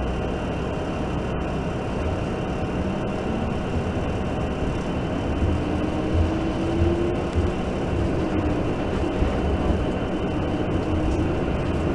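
Inside a TTC streetcar running slowly along the track: a steady low rumble and hiss of wheels on rail and running gear, with a faint motor whine rising twice.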